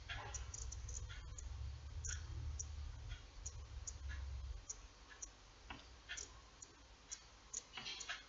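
Faint, irregular small clicks from a fine steel crochet hook and hands working embroidery floss. A low rumble of handling noise runs through the first half.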